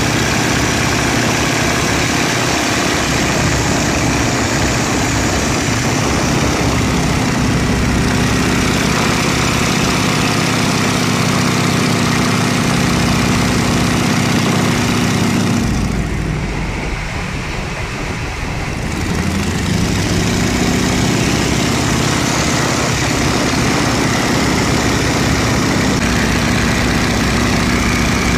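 Boeing Stearman biplane's radial engine and propeller running steadily in flight, heard from the open cockpit with wind rush. About sixteen seconds in the engine note drops and quietens for a few seconds, then comes back to full power.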